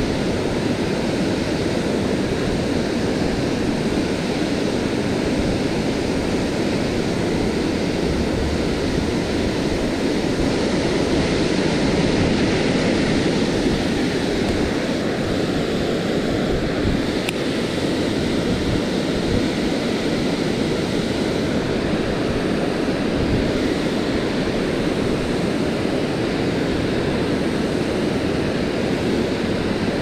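Rushing river water: a steady, unbroken rush of fast-flowing current.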